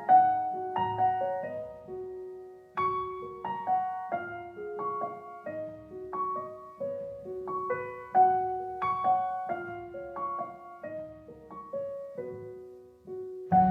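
Gentle solo piano music: a slow melody of single notes and chords, each note ringing and fading, with short pauses between phrases.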